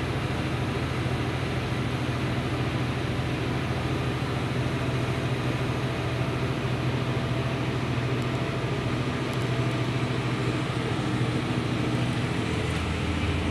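Deutz-Fahr Agrotron M640 tractor engine running steadily, a low drone heard from inside the cab.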